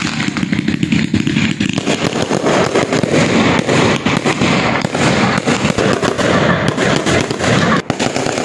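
Aerial fireworks bursting in rapid succession: a loud, continuous barrage of bangs and crackles running into one another.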